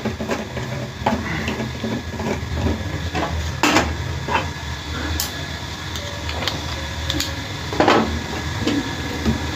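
Metal tools and machine parts clinking and knocking at irregular intervals as a wood-cutting saw's blade is being changed, with two louder metallic knocks near the middle and near the end, over a steady low hum.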